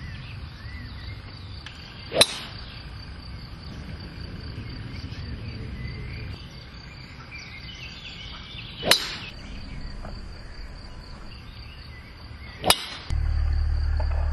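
Crickets trilling steadily, broken by three sharp cracks about six and a half and then four seconds apart. A steady low rumble cuts in suddenly near the end.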